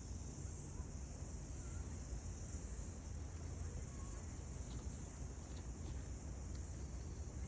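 A steady, high-pitched chorus of insects over a low rumble, with a few faint short chirps near the middle and end.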